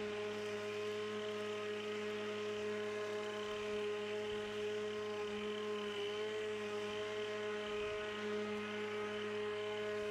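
Pellenc Rasion 2 Easy battery lawnmower running, its electric motor and blade giving a steady whine with a slight waver in pitch about six seconds in.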